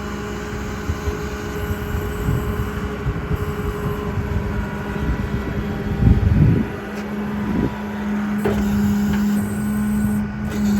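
Service-truck crane's hydraulics running with a steady hum while the boom is worked by remote, over the truck's running engine. The hum grows louder about seven and a half seconds in, and a brief low rumble comes about six seconds in.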